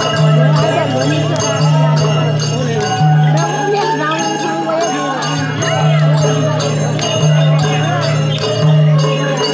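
Traditional music for a Lakhe dance: a fast, even beat of jingling bells and metallic strikes over a low sustained tone, with a large crowd talking and calling.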